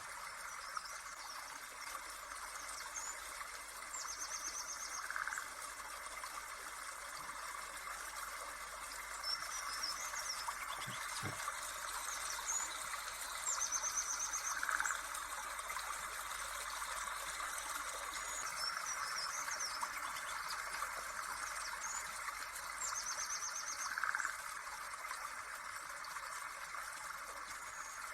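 Nature ambience: steady trickling-water hiss with short bird trills that recur in the same pattern about every ten seconds, like a looped background track.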